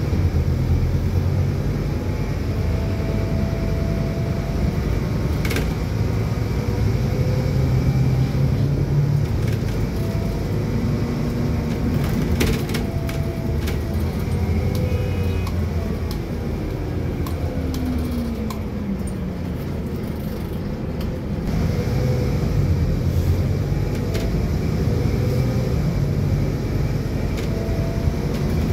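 Steady low rumble of a moving road vehicle heard from inside its cabin, with a few sharp clicks and, about two-thirds of the way through, a whine that falls in pitch as the noise eases, before the rumble builds again.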